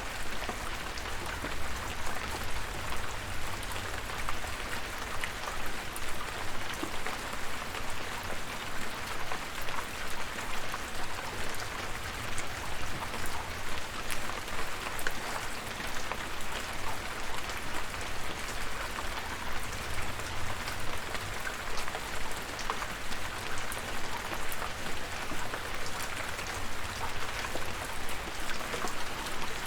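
Rain falling steadily, an even hiss with many separate drop hits, no let-up or change.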